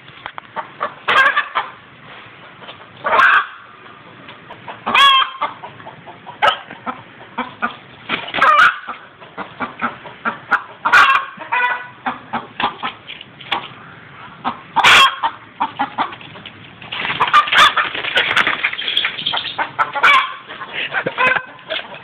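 A chicken clucking and squawking in short calls every second or two, with a busier, more agitated run of calls a few seconds before the end.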